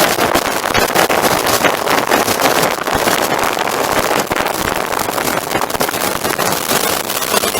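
Loud, steady rushing of wind buffeting the microphone aboard a boat, with a crackly texture and no distinct engine tone.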